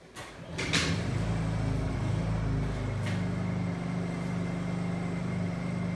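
Honda portable generator's engine coming up to speed and then running with a steady hum, settling to an even pitch about three seconds in. It is carrying the load of a submersible well pump run briefly to fill the air-bound drop pipe with water.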